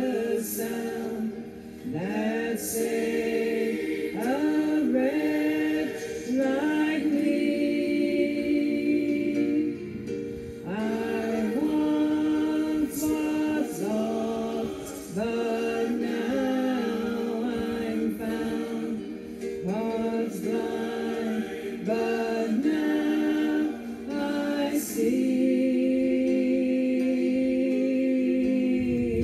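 Slow, unaccompanied hymn singing, led by a woman's voice. The last few seconds hold one long note.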